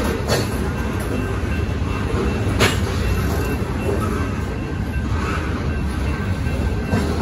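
Freight train of covered hopper cars rolling through a grade crossing, steel wheels rumbling on the rails with a few sharp clanks, the loudest about two and a half seconds in. A crossing bell rings steadily over the train noise.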